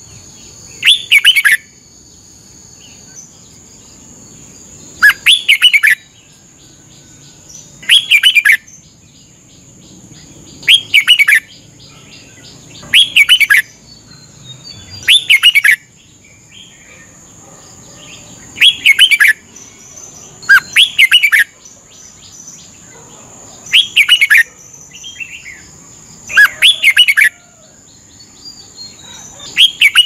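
Red-whiskered bulbul singing short, bubbly, whistled phrases, about ten of them, repeated every two to three seconds.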